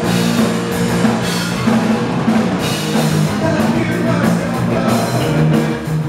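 Rock band playing live: drum kit with cymbals, electric guitar and bass guitar, with a steady beat and a prominent bass line.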